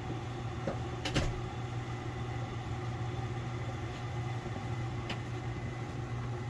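A steady low hum with a few light clicks and knocks over it, the loudest about a second in.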